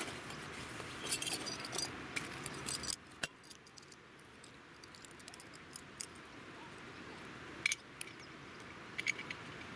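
Small metal clicks and clinks as a compact Primus 224 canister stove is drawn out of its fabric pouch and its folding pot-support arms are opened, with rustling of the pouch. A busy run of clicks in the first three seconds, then a few sharp single clicks near the end.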